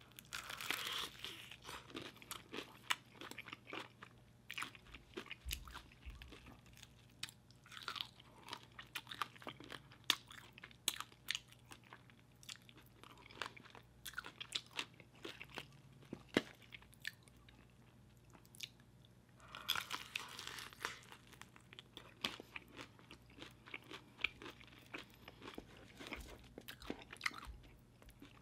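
Close-up crunching and chewing of KFC extra crispy fried chicken: crisp breading crackling under the teeth in short bursts. The loudest crunching comes about a second in and again about twenty seconds in.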